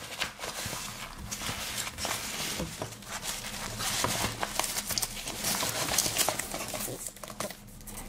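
Polyester organizer pouch being handled: fabric rustling, with scattered small clicks and taps.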